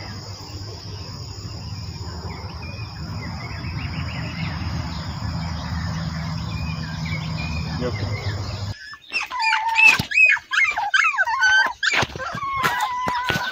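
Insects chirring steadily over a low rumble. After about nine seconds this gives way abruptly to puppies whimpering and yipping in high, wavering cries, which are the loudest part.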